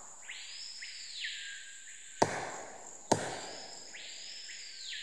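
Back of a machete struck against the buttress root of a mora tree, twice about a second apart, each blow a sharp knock with a ringing echo: a signal that lets team members know where someone is in the forest. A steady high insect drone and two long swelling calls sound behind it.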